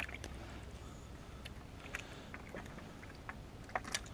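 Faint handling noise from a body-worn camera as the angler moves about: light rustles and scattered small clicks over a soft outdoor hiss, with a couple of sharper clicks near the end.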